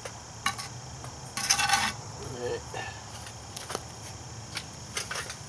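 Metal scoop scraping leftover charcoal off a cast-iron Dutch oven lid and tipping it into a metal charcoal chimney: scattered metallic clinks, with a louder scraping clatter about a second and a half in. A steady high insect drone runs underneath.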